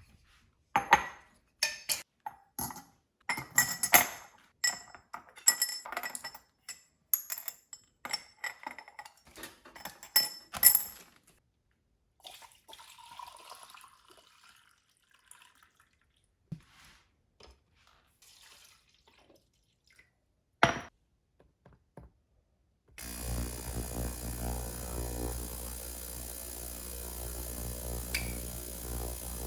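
Small hard parts clinking and rattling against a dish or tray for about ten seconds, then a few faint handling sounds and one sharp click. About 23 seconds in, an electric motor starts and runs with a steady hum.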